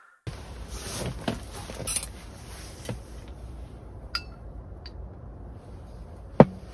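Light clinks and knocks of metal cups and a glass bottle on a table as a drink is poured into a small metal cup. A single sharp knock about six seconds in is the loudest sound.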